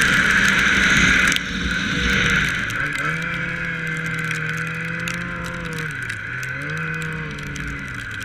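Yamaha Apex snowmobile's four-stroke four-cylinder engine: running at speed with loud wind and track noise, then the throttle is let off about a second and a half in and it drops to a low, pitched burble that dips, rises briefly and settles as the sled slows almost to a stop.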